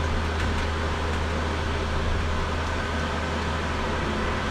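Steady hum inside the cabin of a small battery-electric self-driving shuttle bus (EasyMile EZ10), its air conditioning running, as the bus creeps backwards under manual joystick control.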